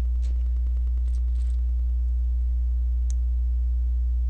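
Steady low electrical hum, with a few faint clicks of plastic LEGO bricks being handled and fitted together.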